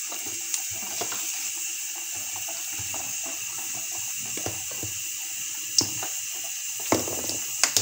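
Tempering frying in hot oil in a kadai: mustard seeds, urad and chana dal and asafoetida sizzling with a steady hiss. A few sharp pops and clicks stand out, the strongest about six and seven and a half seconds in.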